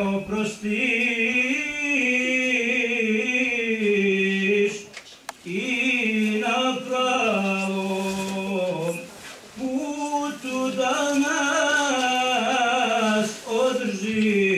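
A man's solo voice chanting an Islamic devotional chant, long melismatic phrases with the pitch wavering up and down on held notes, broken by short breaths about every four seconds.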